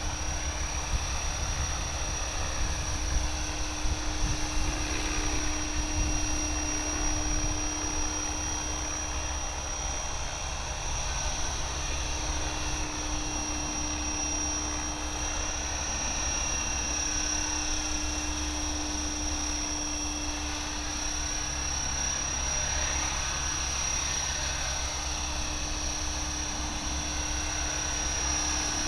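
Align T-Rex 550E electric RC helicopter in flight: the steady high whine of its electric motor and the whir of the main rotor, shifting a little in pitch and loudness as it flies about.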